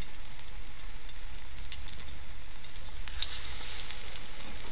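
Hot oil sizzling and crackling around battered eggplant fritters frying in a pan. A little after three seconds in the sizzle briefly grows louder as a second battered slice goes into the oil.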